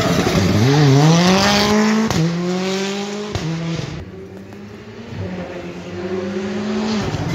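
Rally car engine accelerating hard out of a corner, its pitch climbing, with quick upshifts about two and three and a half seconds in, then fading as the car drives off. From about five seconds in, the next car's engine grows louder as it approaches.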